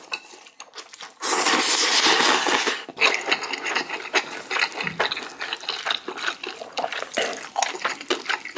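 A person slurping spicy instant noodles from soup, one long loud slurp of about two seconds starting a little after one second in, followed by rapid wet chewing and smacking.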